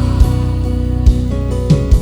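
Worship band music without singing: sustained keyboard-like chords with guitar and a steady bass and drum beat.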